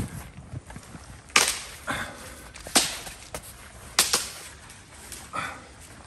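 A handful of sharp swishes and knocks, about one a second, from a rope line being handled and pulled taut while walking on grass.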